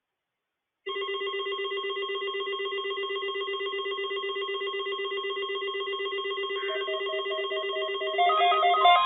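A steady electronic tone starts about a second in and holds, pulsing quickly. Higher tones join near the end, and a second steady tone begins at the very end.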